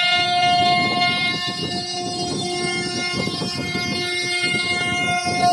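CNC router spindle whining at a steady high pitch as its bit cuts a groove in a wooden door panel, with rough, uneven cutting noise beneath the whine.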